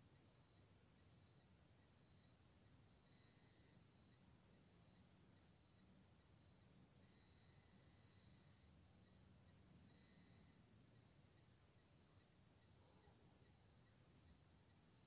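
Near silence: a faint, steady high-pitched trill with a softer note pulsing about every two-thirds of a second.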